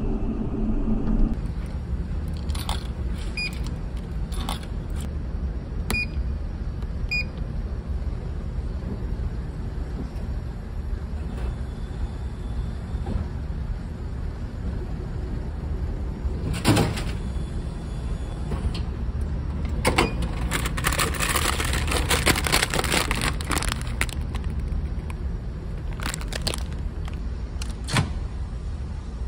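Steady low rumble of a ferry's engines through the ship. Over it come scattered clicks with short beeps, a single loud knock about halfway through, and a few seconds of plastic clattering and handling. Near the end a microwave oven door clicks open.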